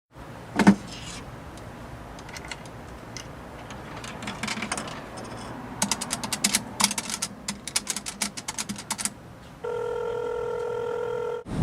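A telephone being handled and dialled: a clunk about a second in, then a long run of sharp clicking key presses, then a steady tone of about two seconds that cuts off suddenly near the end.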